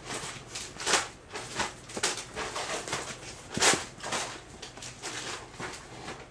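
Rustling swishes as a feather wand toy is waved and a Maine Coon kitten swats and pounces at it on the bedding, in uneven short bursts, loudest about a second in and again past the middle.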